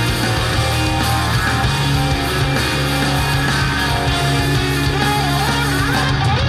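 Rock music with electric guitar and a heavy, steady bass line, played back through Korvet 75AC-001 three-way loudspeakers fitted with their original factory drivers.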